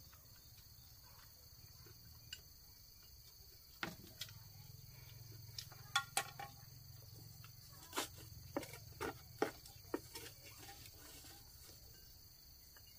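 Chopsticks knocking against a frying pan, a bowl and a pot in a scatter of short sharp clicks, most of them between about four and ten seconds in. Insects keep up a steady high drone underneath.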